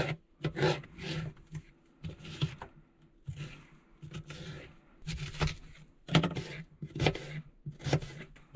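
Kitchen knife slicing and dicing a yellow bell pepper on a plastic cutting board: a run of uneven chopping knocks that come closer together in the second half.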